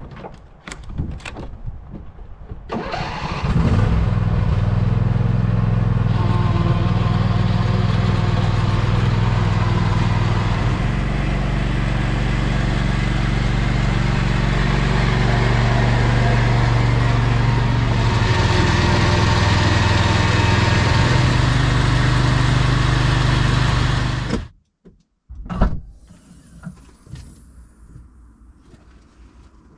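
John Deere lawn tractor engine starting about three seconds in and running steadily while it tows a loaded cart, then cutting off abruptly about twenty seconds later. A few clicks come before it starts, and faint knocks and rustles follow after it stops.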